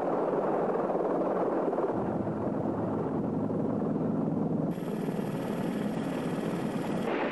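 Helicopter running steadily: a dense rushing noise with a faint low hum, and a higher hiss joining about two-thirds of the way through.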